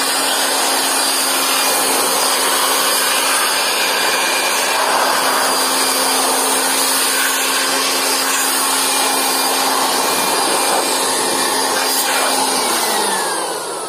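Handheld electric air blower running steadily, blowing dust out of an opened solar inverter's circuit boards. Near the end it is switched off and its motor hum falls in pitch as it spins down.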